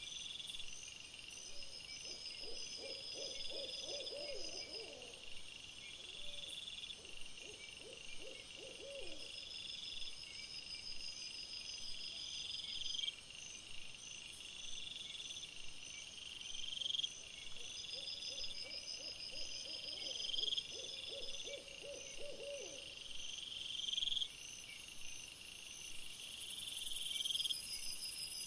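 An owl hooting in two long quavering calls, a few seconds in and again about two-thirds of the way through, over insects chirping at a steady, regular pace. A steady high hiss comes up near the end.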